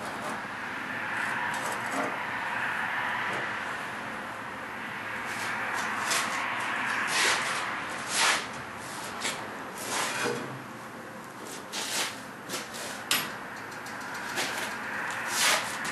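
Steel pieces being tack-welded: a string of short, sharp crackling bursts over a steady hiss, most of them in the second half.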